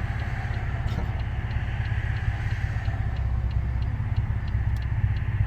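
Catless-exhaust Pontiac Grand Prix GT V6 running steadily with a low, even exhaust rumble, heard from inside the cabin.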